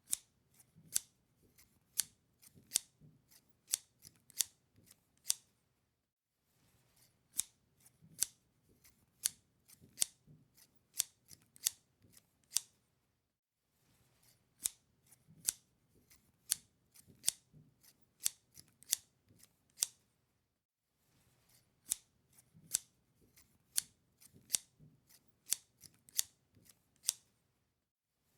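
Sharp clicks in quick, irregular succession, in four runs of about six seconds each separated by short pauses.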